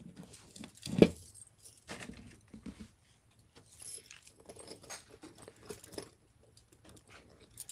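Fine metal necklace chain with a coin pendant clinking and rustling as it is handled and laid on a suede display tray, in light scattered jingles, with a dull knock about a second in.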